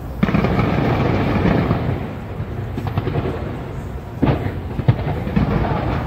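Fireworks bursting in a continuous rumble and crackle, with sharp bangs about four and five seconds in.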